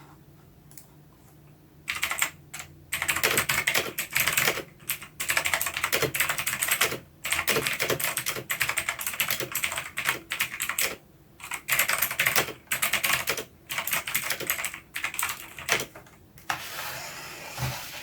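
Mechanical keyboard being typed on in quick bursts of keystrokes with short pauses between them, starting about two seconds in, with a denser run of rapid keystrokes near the end.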